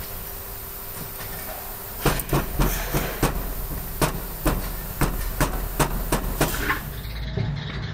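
Rubber mallet tapping rapidly on the rubber dampers in a spoked motorcycle wheel hub, seating them in place: a quick, even run of knocks, about three to four a second, starting about two seconds in and stopping near the end.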